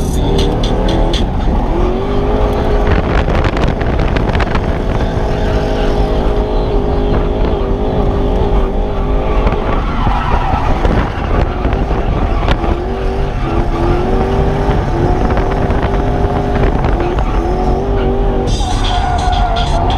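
A Toyota 1UZ V8 in a drifting Nissan S13, heard from inside the cabin, its revs rising and falling under throttle while the tyres skid and squeal.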